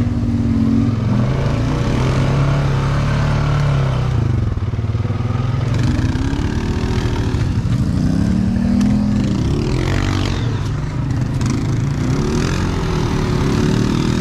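ATV engine running under load through mud, its pitch rising and falling again and again as the throttle is worked.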